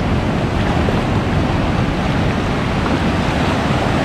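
Ocean surf breaking and washing around the legs of someone standing in the shallows: a steady, loud rush of water.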